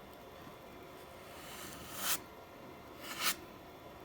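Plastic card scraping filler across the foam skin of an RC airplane: two short scratchy strokes about a second apart, the first about two seconds in.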